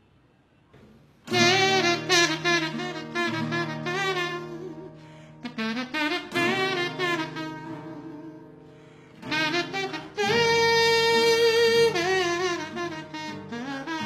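A buzzy, reed-like melody with wavering pitch played on a small wind instrument held in the mouth, over a steady acoustic guitar. It starts about a second in, runs in short phrases, and ends with a long held note near the end.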